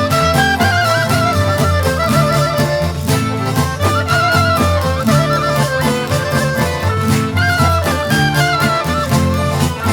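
Albanian folk dance music: an ornamented, wavering melody over a steady low accompaniment and an even, regular beat.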